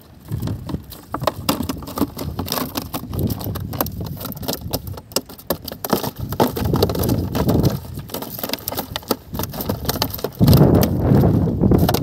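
Fish being picked out of a nylon gill net and dropped into a plastic bucket: irregular taps, knocks and rustling of the net and fish against the plastic. A low rumble of wind on the microphone grows louder from about ten seconds in.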